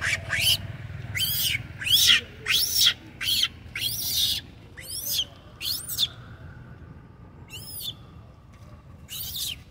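Young long-tailed macaque screaming in a run of short, high-pitched squeals, each rising then falling, about two a second. The squeals pause about six seconds in, then two more come spaced out near the end.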